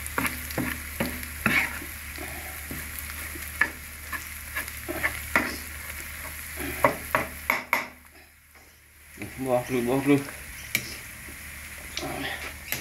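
Metal spoon stirring and scraping sliced onions and garlic frying in a red chili sauce in a nonstick frying pan: a steady sizzle broken by frequent clicks and scrapes of the spoon on the pan. The sizzle drops away briefly about eight seconds in.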